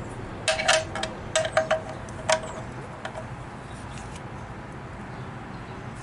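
Wrench working a bolt on a Ford Model T oil pan: about eight sharp metallic clinks with a brief ring, in quick groups over the first two and a half seconds, as the leaking bolt is tightened.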